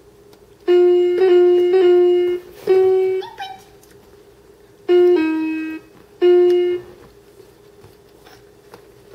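VTech Baby's Creativity Cottage baby activity toy playing short electronic piano-like notes as its buttons are pressed: a quick run of three notes, then three shorter bursts with pauses between.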